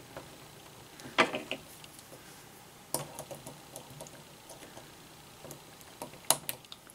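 A few small sharp clicks and taps as a metal C-clip is worked onto the spur gear shaft of an RC truck with a small tool, the sharpest about a second in and a cluster near the end.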